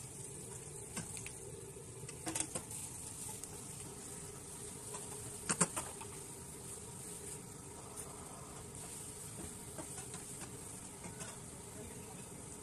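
Sliced onions and green chillies sizzling in hot oil in a metal pan, a steady hiss, with a few knocks and scrapes of a wooden spatula against the pan; the loudest knock comes about halfway through.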